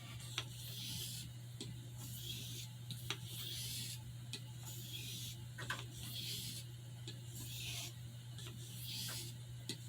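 Small pocket-knife pen blade being stroked across a soft Arkansas whetstone, a light scraping hiss about once a second with small clicks of the blade between passes.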